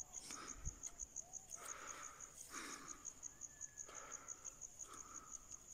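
Faint, steady insect chirping, high and pulsing at about five chirps a second, with soft, irregular lapping as two puppies drink from a muddy puddle.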